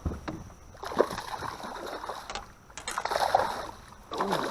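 Water splashing and rattling around a fishing boat, with a few sharp knocks, as a freshly caught fish is handled.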